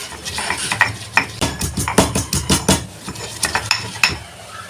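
Fresh herbs and spices being pounded in a small stone mortar: repeated knocks, two or three a second, stopping shortly before the end.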